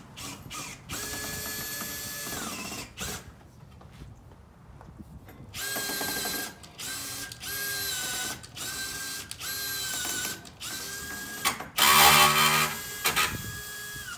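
Cordless drill-driver running in one longer run and then a string of short start-stop bursts, driving a screw into the top corner of an aluminum sliding door frame, with a louder, rougher burst near the end. The screw is not going in right.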